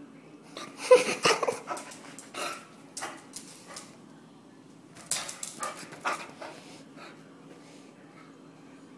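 A dog giving short, sharp barks in two runs, one about a second in and another around five seconds in, with a few single ones between.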